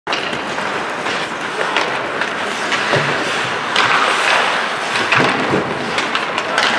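Ice hockey play in a rink: skate blades scraping and carving the ice, with several sharp clacks of sticks and puck, echoing in the hall.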